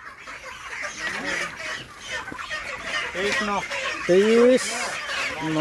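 A flock of broiler chickens clucking and chattering, with a few short, louder squawks. The loudest squawk comes about four seconds in, rising and then dropping.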